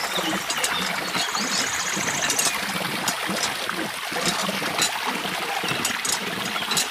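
A thin stream of water pouring steadily from a miniature model hand pump's spout and splashing into a small pool of water, with a few light clicks now and then.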